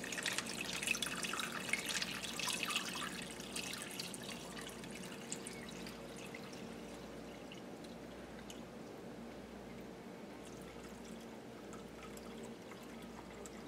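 Cooled brine poured from a pot into a plastic tub over a raw deer roast. It splashes and spatters for the first few seconds, then settles to a thin, steady trickle.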